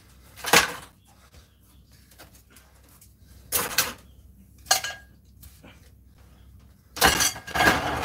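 Loose sheet-metal parts from a stripped-down microwave clattering as they are handled and dropped together: single clatters about half a second in and around four and five seconds, then a longer run of rattling near the end.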